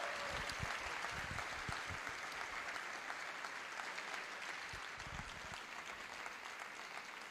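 An audience applauding, the clapping slowly fading toward the end, with a few low thumps underneath.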